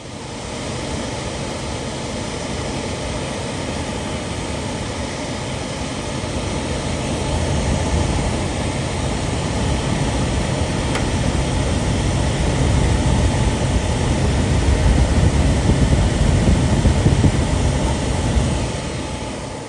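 Suburban SF-30 RV furnace's blower running on a test start, a steady rushing of air that grows louder past the halfway point and dies away near the end. The furnace is attempting to fire with its new burner and igniter.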